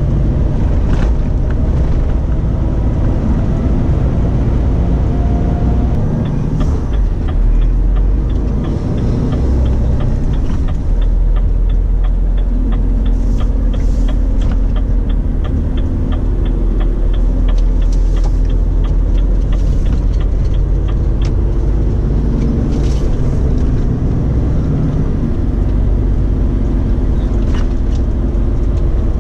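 Renault Trucks T-range cab interior while driving: steady diesel engine rumble and road noise. For about fifteen seconds in the middle, an evenly spaced ticking at roughly two a second, the turn-signal indicator working through a roundabout.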